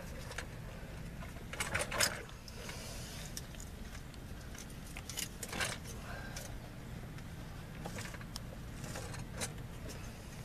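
Scraping, knocking and short rattles from PVC pipe being forced into a tight rubber coupling on a sump pump's discharge line, inside a plastic sump pit. The handling noise is irregular and loudest about two seconds in and again around five and a half seconds.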